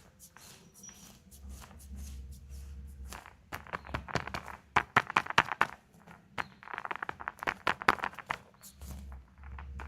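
Packaging being handled, crinkling and clicking in rapid crackles: two spells of about two seconds each.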